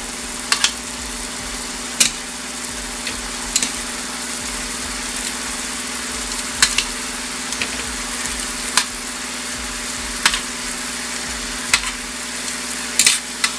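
Wine, lemon and butter sauce boiling hard in a frying pan around shrimp: a steady sizzle with a sharp pop every second or two, over a steady low hum.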